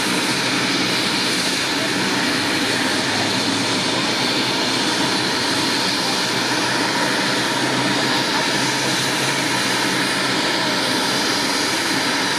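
Medevac helicopter running steadily, a loud, even rush of turbine and rotor noise with a faint thin whine over it.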